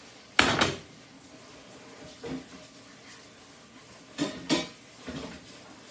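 Metal stovetop pieces being handled in a kitchen sink for rinsing, clattering and clanking against each other and the sink. There is a loud clatter about half a second in, a softer knock about two seconds in, two clanks just after four seconds, and one more soft one a second later.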